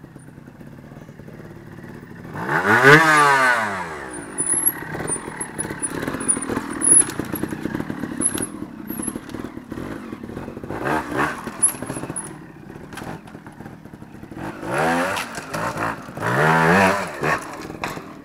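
Gas Gas trials motorcycle's two-stroke single-cylinder engine ticking over, then blipped in four sharp revs: the loudest about three seconds in, the others near the end. Between the revs come knocks and scrapes of the bike on rock.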